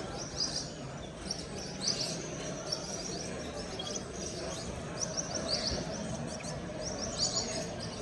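Many caged canaries and finches chirping together in short, high calls, scattered all through, over a steady low background murmur.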